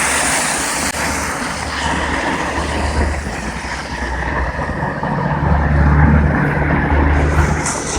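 Road traffic passing on a slush-covered city street: tyre hiss with a heavy vehicle's engine hum that builds about five seconds in and is loudest around six seconds.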